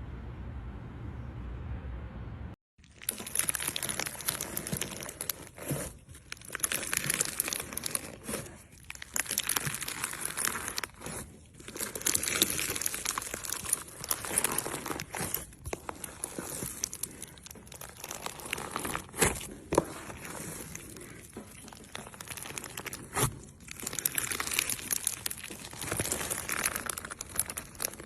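Crunchy slime being squeezed and worked: a dense run of crackling, crinkling pops with short pauses between squeezes. A steady low hum comes before it, cutting off a couple of seconds in.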